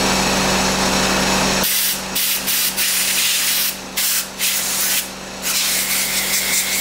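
Air blower nozzle blowing air through a sander's dust port and the holes of its sanding pad to clean out dust. It is a steady hiss, with a low hum beneath it for about the first second and a half. After that the hiss goes on in blasts with several short breaks.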